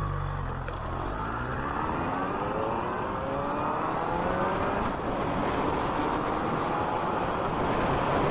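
Suzuki 1200 Bandit's inline-four engine pulling hard under acceleration, its pitch climbing, dropping at a gear change about five seconds in, then climbing again. Steady wind and road rush underneath.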